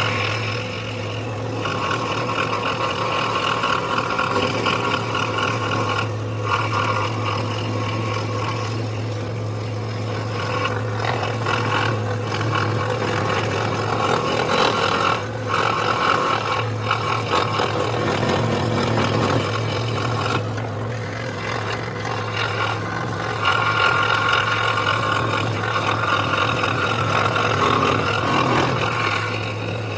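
Scroll saw running with a steady motor hum, its blade cutting through a wooden workpiece; the cutting noise swells and fades, with a few brief dips, as the piece is fed and turned along the curves.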